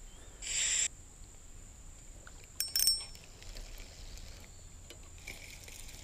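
A short splash of river water about half a second in, then a pair of sharp metallic clicks with a brief high ring near the middle. A faint steady high-pitched whine runs underneath.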